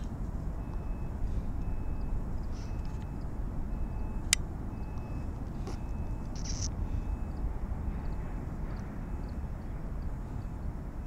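Steady low rumble of a large car ferry under way in the harbour. Faint short high beeps repeat about every two-thirds of a second, with a single sharp click about four seconds in.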